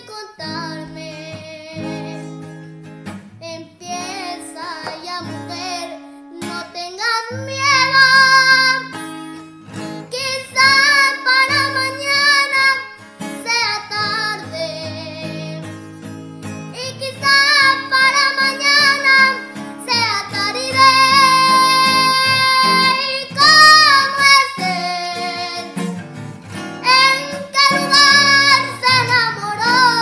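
A young boy singing a song over instrumental accompaniment. He holds long notes with a wavering vibrato, in phrases with short breaks between them.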